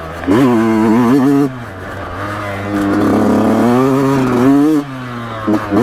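Yamaha YZ125X's 125 cc two-stroke single-cylinder engine, ridden hard: two long bursts of throttle with the pitch rising and falling, separated by short off-throttle lulls, then a couple of quick blips of the throttle near the end.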